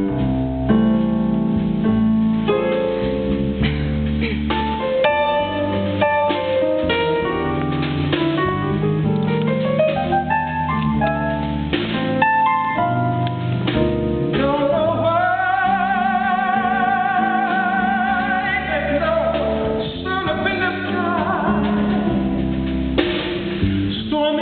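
Live band music starts up sharply and runs on steadily, a lead line held and wavering with vibrato through the middle.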